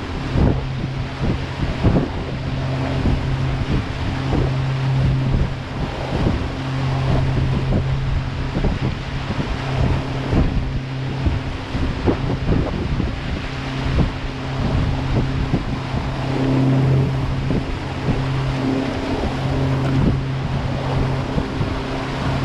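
Water taxi's engine running steadily underway, a constant low hum, with water rushing past the hull and wind gusting on the microphone.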